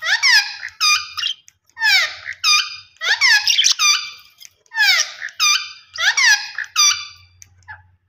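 Budgerigars calling: loud, sharp chirps that slide down in pitch, coming in quick clusters of two or three about every second or so, and stopping just before the end.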